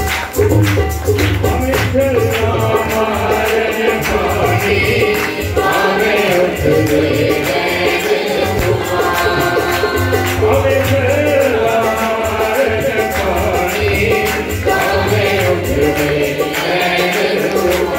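Live devotional song: a man sings with harmonium accompaniment while a tabla plays a steady rhythm.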